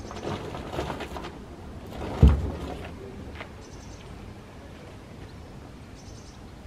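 Stones and bags being handled in an open car boot, with knocks and rustling, then one heavy thump a little over two seconds in.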